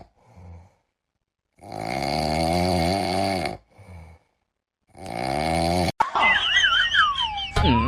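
A pet snoring: two long snores, the first about two seconds long, with faint short breaths between them. About six seconds in, comedic music with gliding whistle tones cuts in.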